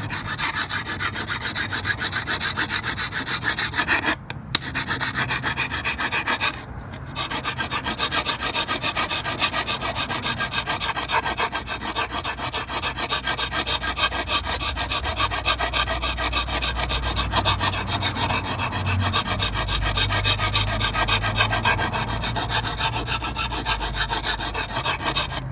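Hand file rasping back and forth along the edge of a steel lawn mower blade in fast, steady strokes, sharpening a dull cutting edge. The filing stops briefly twice, about four and seven seconds in.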